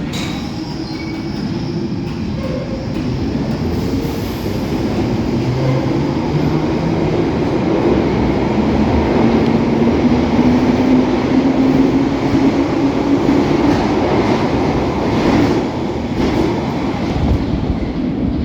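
London Underground 1972 Stock tube train accelerating, its DC traction motors whining in a slowly rising pitch over the rumble of the wheels on the rails. It grows louder through the first half.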